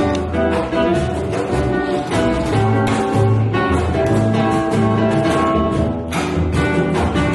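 Live acoustic band playing: acoustic guitar and plucked double bass over a walking bass line, with hand percussion and a sharp hit about six seconds in.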